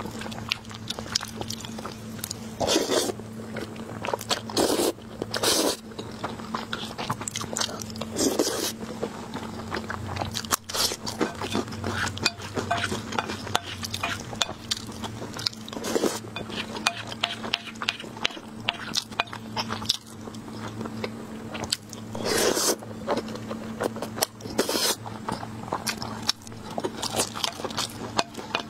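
Close-up eating sounds: wet chewing and smacking of mouthfuls of rice and braised pork, with a wooden spoon scraping and tapping on a porcelain plate. A few louder short bursts stand out among the small clicks.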